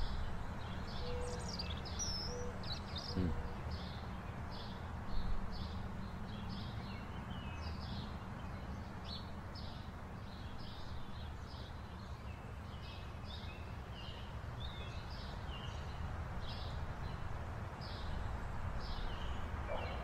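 A songbird chirping over and over, short high notes about one or two a second, over a steady low outdoor rumble.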